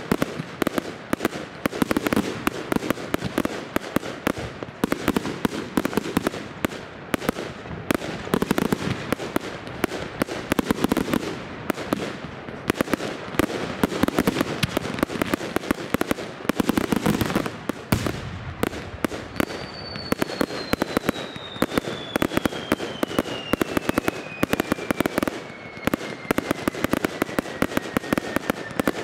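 Fireworks going off in a dense, continuous barrage: a rapid jumble of bangs, pops and crackles from many shells and rockets bursting at once. About two-thirds of the way in, a thin whistle starts and slides slowly down in pitch.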